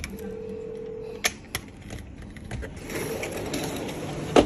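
Hand working the latch of a sliding balcony door's metal frame: two sharp clicks a little over a second in, a rattling, scraping noise in the second half, and a louder click near the end.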